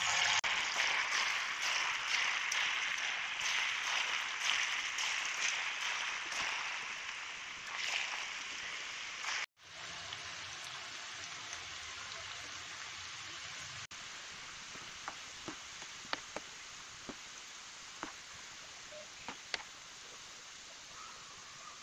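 Batter-coated cashews deep-frying in hot oil: a steady sizzle with crackling, louder in the first half while fresh cashews go in. About halfway it drops suddenly and goes on quieter, with scattered sharp pops.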